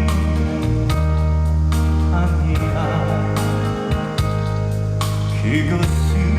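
Live band playing a slow ballad with held chords and a deep bass line, and a male singer's voice coming in on a sung phrase.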